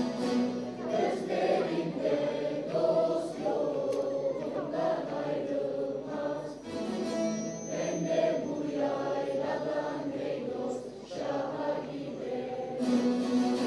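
A choir of children and teenagers singing together, accompanied by bağlamas (long-necked Turkish saz lutes).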